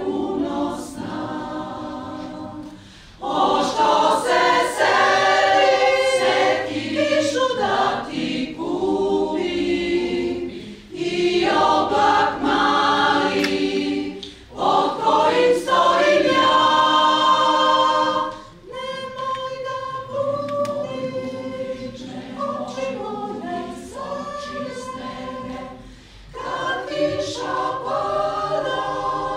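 Mixed choir of women's and men's voices singing a cappella, in phrases broken by short pauses. The loudest passages come about four seconds in and again around fifteen to eighteen seconds.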